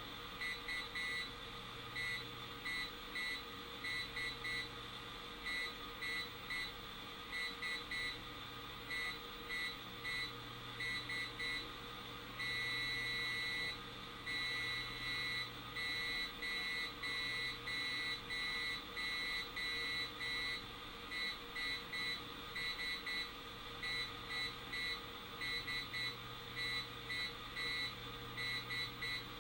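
Morse code coming through a small AM radio's speaker: a single buzzy tone keyed on and off in short and long beeps over steady static hiss, with one long tone about halfway through. The signal is the keyed output of negative ion generators, picked up by the radio tuned between stations.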